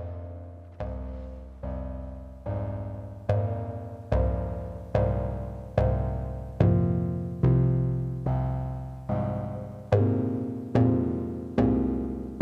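Eurorack modular synthesizer playing a sequence of low, plucked notes, about one every 0.8 seconds, each striking sharply and dying away, with the pitch moving from note to note. The notes grow louder through the first half.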